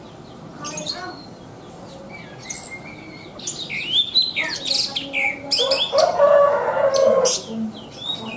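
Thrush (anis) singing rapidly and continuously: quick whistled phrases of sweeping, changing notes, busiest in the second half, with a lower, rougher sound underneath about six to seven seconds in.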